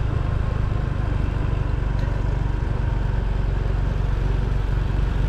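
Steady low rumble of wind buffeting the microphone on a camera riding along a paved road, with road and vehicle noise underneath.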